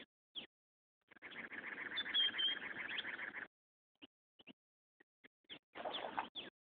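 Small birds chirping: short, falling chirps, with about two seconds of rapid twittering beginning about a second in and another short burst of twittering near the end.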